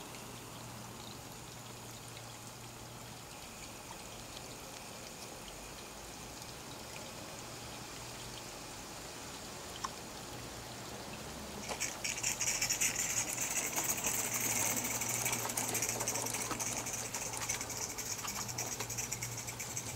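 Faint steady background, then from about twelve seconds in a louder steady hiss with a fine rapid patter, most likely steam escaping from a 16mm-scale live-steam model of the Hunslet 0-6-4ST Beddgelert as it works its train.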